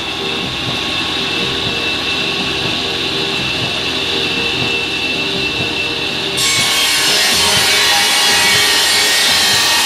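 Tractor-PTO-driven SECA circular saw cutting planks: a steady high whine from the spinning blade while the wood is fed in. About six seconds in, the blade bites fully into a board and gives a louder, hissing cut.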